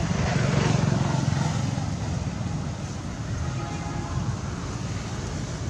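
Low rumble of passing road traffic, a motor vehicle going by, loudest in the first second or so and then easing to a steady background drone.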